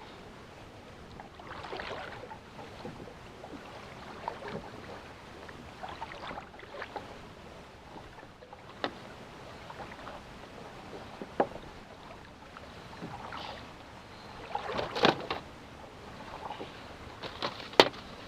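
Scattered knocks, clicks and rustles of a fish and fishing gear being handled on board a kayak, with a cluster of knocks about 15 seconds in and a sharp click near the end.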